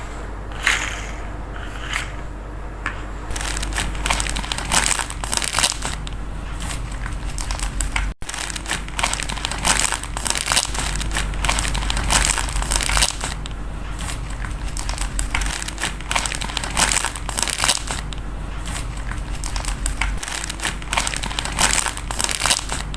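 Plastic packaging crinkling and crackling as toys are unwrapped and handled, with irregular small clicks and knocks throughout and a brief cut-out about eight seconds in.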